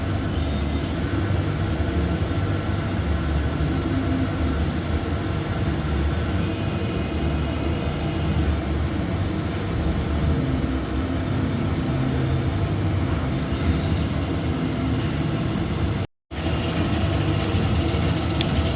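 Laser cutter running a shallow cut for text: a steady mechanical drone that cuts out for a moment near the end.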